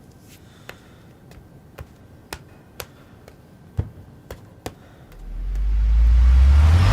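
Sharp taps or clicks, roughly two a second for a few seconds, then a deep rumble that swells up and grows loud near the end.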